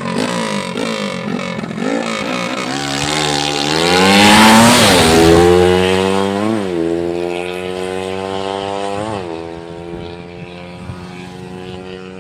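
Freshly overhauled motorcycle engine being test-ridden, accelerating with rising pitch and passing loudest about four and a half seconds in. It then keeps pulling, with two quick drops and recoveries in pitch as it shifts gear, and fades as it moves away.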